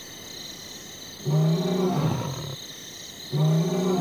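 Male lion roaring, two roars in a bout: one about a second in and another just past three seconds, each a low, drawn-out call. These are the calls by which lions keep in touch with one another over distance.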